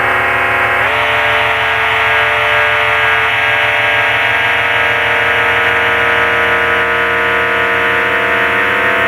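FM MINT mk2 FM synthesizer playing a sustained drone chord of several held tones. The chord slides up in pitch about a second in, the low notes wobble rapidly, and a further note joins later on.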